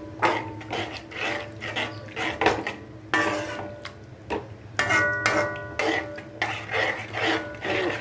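A metal spoon stirring thick cornflour-thickened sauce in a metal kadai, a quick run of scrapes and knocks against the pan, two or three a second.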